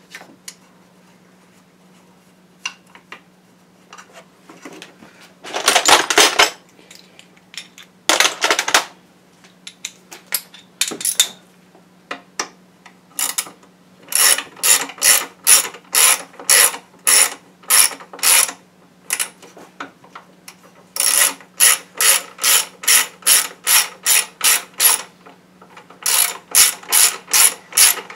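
Hand ratchet wrench clicking in quick repeated strokes, about three a second, in several runs with short pauses, as it runs in the intake manifold bolts. A couple of brief clatters come before the clicking starts.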